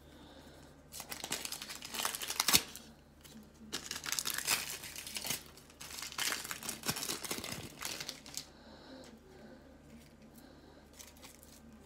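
Trading-card pack wrapper crinkling and rustling in the hands. The sound comes in irregular bursts from about a second in until a few seconds before the end, then goes faint.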